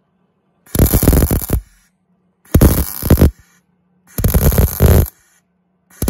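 MIG welder stitch-welding a new steel patch into a rusted van door step: four short crackling bursts of just under a second each, about one every 1.7 seconds, with a faint steady hum in the gaps between them.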